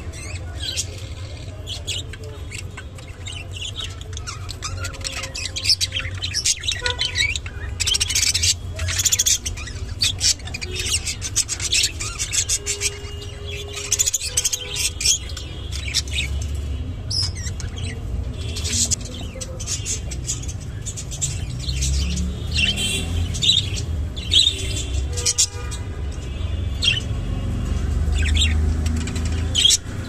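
Budgerigars chirping and chattering in many quick, short calls, over a low steady rumble.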